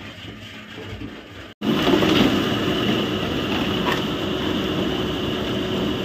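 Loud, steady mechanical rattling and rumbling that starts abruptly after a brief silence about one and a half seconds in, with a quieter mechanical background before it.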